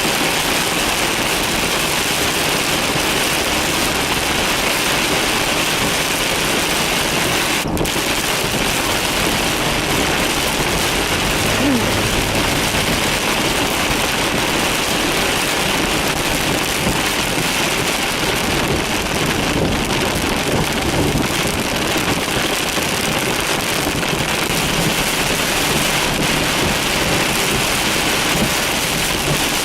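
Torrential rain falling hard in a thunderstorm, an even, steady rush of water with a brief dropout about eight seconds in.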